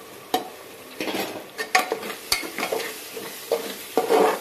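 Chopped tomatoes dropped into hot oil and masala in an aluminium pressure cooker, sizzling, then stirred with a spatula that knocks and scrapes irregularly against the pot, loudest near the end.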